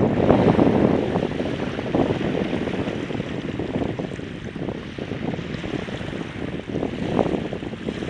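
Small waves washing up on a flat sandy beach at low tide, with wind buffeting the microphone. Loudest at the start, it eases off through the middle and swells again near the end.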